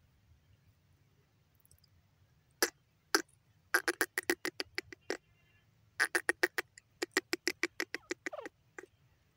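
Grey francolin calling. After two single notes come two quick runs of repeated sharp notes, several a second, the second run longer and ending in a falling note.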